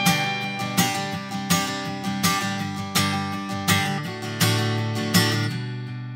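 Steel-string acoustic guitar strumming chords at a steady, unhurried pace, about one strum every three-quarters of a second. The last chord is left ringing near the end.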